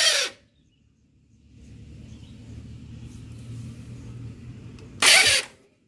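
Honda CB150R motorcycle engine running with a low steady rumble, framed by two short loud bursts, one at the very start and one about five seconds in.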